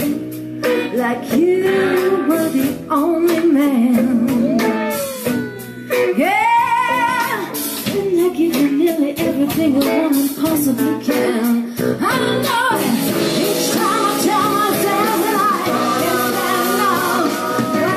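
A rock band playing a song, with singing and guitar over a steady accompaniment.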